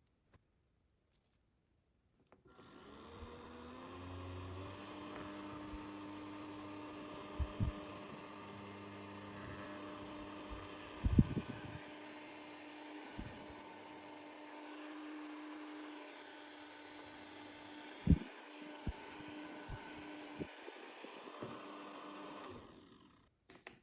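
Mini handheld fan's small electric motor switched on, spinning up with a rising hum and then running steadily. A few sharp knocks from handling, the loudest about 11 and 18 seconds in. The hum cuts off suddenly near the end.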